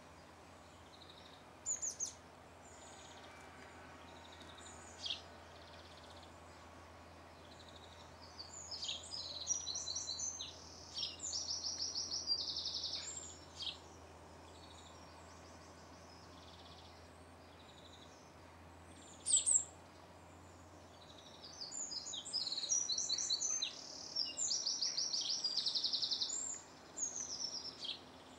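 Small songbirds singing: a few short, high chirps, then two longer bursts of rapid, high trilled phrases, one about a third of the way in and one near the end.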